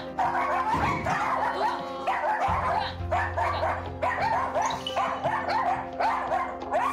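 Several small dogs barking rapidly and repeatedly, one setting the others off so that the barks overlap in a chorus, over background music.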